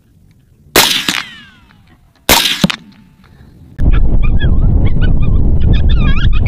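Two rifle shots about a second and a half apart, the first trailing off in a falling whine. From about four seconds in, loud, quick animal calls that rise and fall in pitch, over a heavy low rumble.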